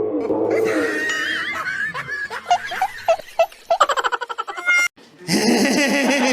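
Laughter in quick, repeated ha-ha bursts, with a sudden brief break near the five-second mark.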